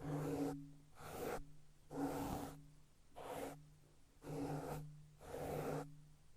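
Close-miked ASMR hand sounds: skin rubbing or swishing in a regular series of short strokes, about one a second, over a faint low hum.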